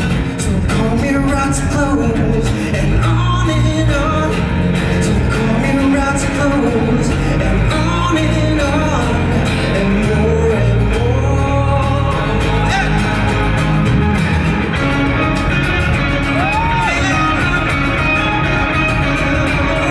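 A live rock band playing with a vocalist singing over it, heard in a hall.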